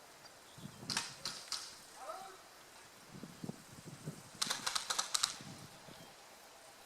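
Airsoft replicas firing: three sharp snapping shots about a second in, then a quick run of about eight shots about four and a half seconds in. Faint low thuds come in between.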